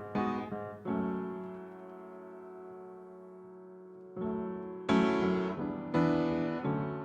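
Piano playing slow chords with no singing. A chord struck about a second in rings out and fades over about three seconds, then fresh chords come in from about four seconds on.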